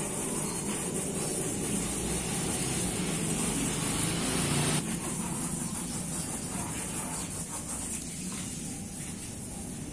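Steady outdoor background noise: a low, wavering rumble like distant traffic under a constant high hiss.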